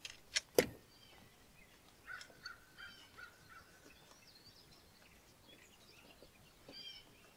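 Two sharp clicks of metal fittings about half a second in, as a fuel pressure gauge is fitted to the fuel filter's banjo bolt. Faint birds chirp behind it, with a held whistle around the middle and trilled calls near the end.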